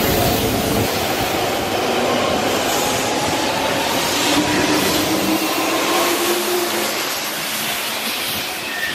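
Hanshin 5000-series electric commuter train moving along the platform, its traction motor whine rising in pitch as it picks up speed, over the rumble of wheels on rail.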